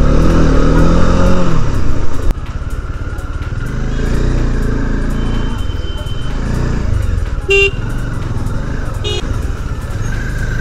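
Motorcycle engine running as the bike rides slowly through traffic, its note rising and falling in the first two seconds. A vehicle horn gives two short toots, about seven and a half and nine seconds in.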